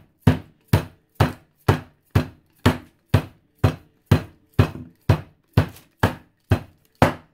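A rolling pin pounding a chicken breast flat inside a plastic zip-top bag, in a steady rhythm of about two blows a second, some fifteen strikes in all.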